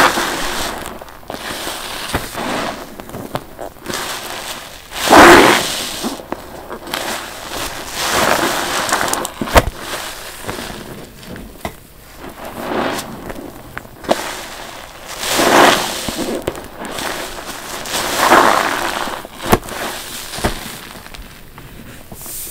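A soapy, foam-laden sponge being squeezed by hand over and over: wet squelches and crackling lather come in swells every few seconds, the loudest about five seconds in, with sharp wet pops between.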